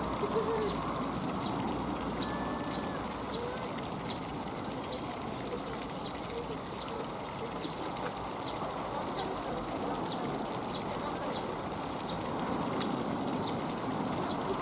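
Outdoor background noise with a short high chirp repeating evenly about twice a second.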